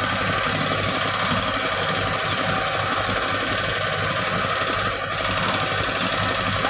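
Mini excavator's diesel engine running steadily close by.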